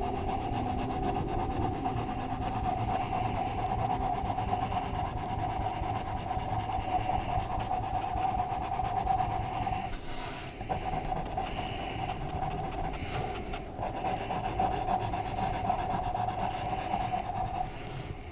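Colored pencil scratching steadily on paper as an area is shaded in, stopping briefly twice in the second half when the pencil lifts.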